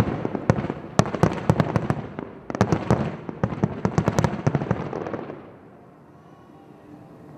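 Fireworks barrage: rapid volleys of sharp bangs from aerial shells bursting, coming thick and fast, then thinning out and dying away about five seconds in.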